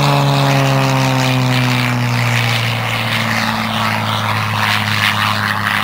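Aerobatic biplane's piston engine and propeller droning loudly as it flies low past, the engine note sliding steadily lower in pitch as it goes by.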